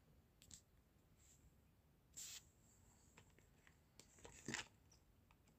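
Near silence: room tone, broken by two faint brief noises, one about two seconds in and a slightly louder one about four and a half seconds in.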